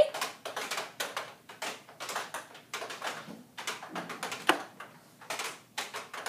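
Sewing machine bobbin winders being pushed back and forth on many machines at once: an irregular, overlapping patter of small plastic clicks and clacks, several a second.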